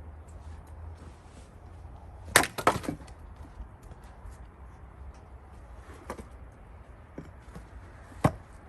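Gränsfors Bruks axe splitting cherry-wood rounds: a sharp strike about two and a half seconds in, followed by a few quick cracks as the wood splits, a lighter knock around six seconds, and another sharp strike near the end.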